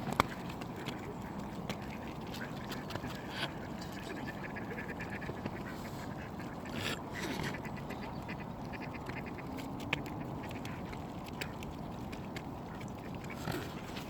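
Mallard ducks quacking now and then over a steady background hiss, with scattered small clicks.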